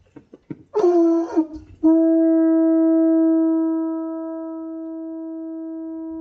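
Conch shell horn blown: a short wavering blast about a second in, then one long steady note held from about two seconds in, growing softer after a couple of seconds.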